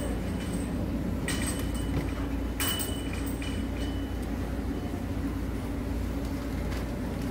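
Metal clanks from a hinged egg waffle iron being swung open and its pan turned over, three sharp knocks with a short ring in the first three seconds. A steady low hum runs underneath.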